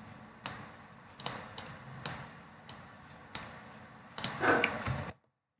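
Computer mouse clicking: about seven separate sharp clicks spread over four seconds, over faint room hum. Near the end comes a brief louder, voice-like sound, and then the sound cuts off suddenly to dead silence.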